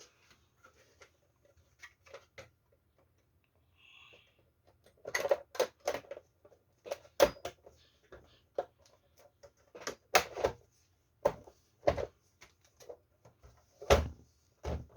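Plastic cover of a Samsung One Connect box being handled and fitted back on: irregular sharp clicks and knocks, sparse at first, then coming thick and loud from about five seconds in.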